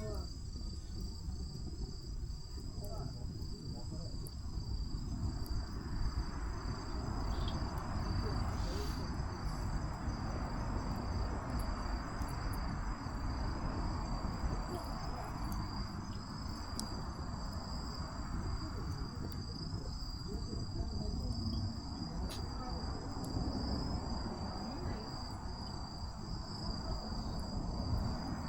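Insects trilling steadily in high, continuous tones, over a low rushing noise with scattered small crackles from a campfire.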